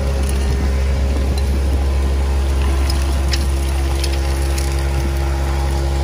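A truck-mounted vacuum excavator runs steadily with a loud, deep drone while it sucks up soil and water from a post hole. A few sharp ticks come about halfway through.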